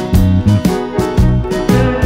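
Cheerful instrumental background music with a steady beat.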